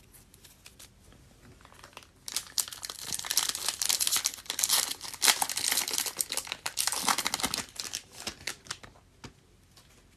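Foil wrapper of a Panini Prizm football card pack being torn open and crinkled in the hands: a dense crackling that starts about two seconds in and dies away near the end.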